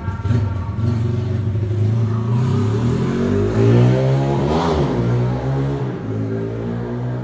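A motor vehicle's engine running, growing louder to a peak a little past halfway through and then fading.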